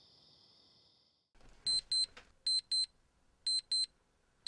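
Bedside digital alarm clock going off, beeping in pairs of short high beeps about one pair a second, starting a little over a second in.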